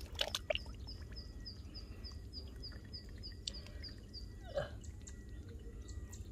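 Small wild animals calling in a rice field. A rapid row of short high chirps, about four a second, runs for the first four seconds or so. A single falling call comes a little past four seconds in, over a steady low rumble.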